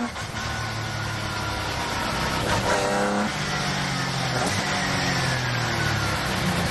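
Onboard sound of a Ginetta G50 GT4 racing car's V6 engine pulling hard with gear changes at the start and about three seconds in, then falling in pitch as the car slows for a corner. Tyre spray hiss from the wet track runs underneath.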